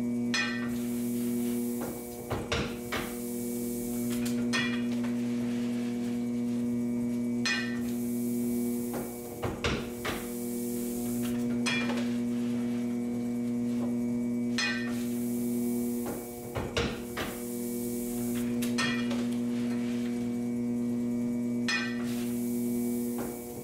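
Century-old flywheel platen printing press running, with a sharp metallic clack every two to three seconds as it prints hand-fed envelopes; some strokes sound as a quick double knock. A steady electric hum runs underneath.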